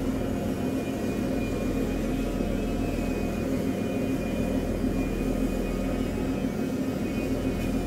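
Steady running noise of a RoRo ferry's engine, picked up by a lavalier mic with its noise cancellation switched off, with a faint high whine running through it.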